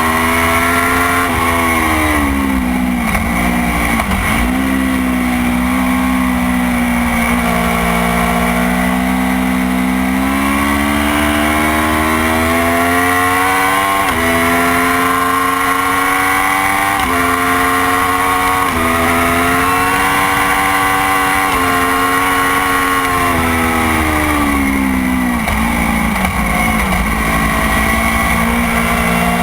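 Motorcycle engine at racing speed on a circuit. It revs up through the gears, and each upshift drops the pitch suddenly, about three times in the middle. Near the start and near the end the revs fall and waver as it slows and downshifts for corners.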